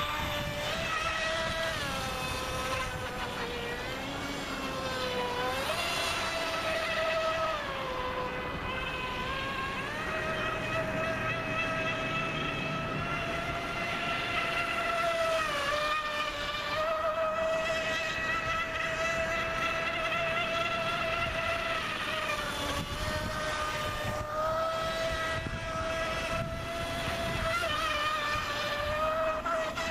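Radio-controlled electric boat running: an 1800 kV brushless outrunner motor on 4S LiPo drives a Kyosho Dolphin outboard's flex shaft and X440 propeller, giving a high steady whine that dips and rises in pitch several times as the throttle changes, over a rough hiss of water and wind.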